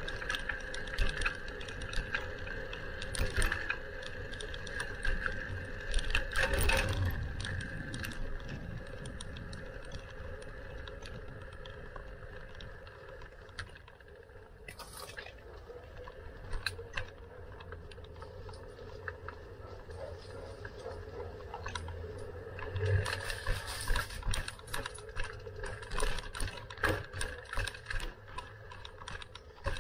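Bicycle rattling and clicking while being ridden, over a steady hum. The clicks and rattles come thickest in the first few seconds and again near the end, and are quieter in between.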